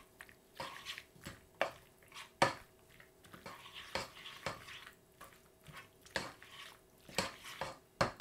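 A spoon stirring and turning cooked pasta through a tuna and sweetcorn mixture in a saucepan, with irregular clicks and knocks of the spoon against the pan.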